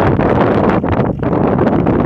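Wind buffeting the microphone in irregular, loud gusts.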